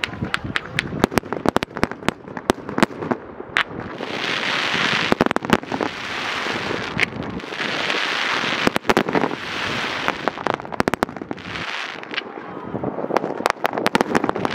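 Fireworks display: many sharp bangs in quick succession, with several stretches of dense, hissing crackle lasting a second or two each.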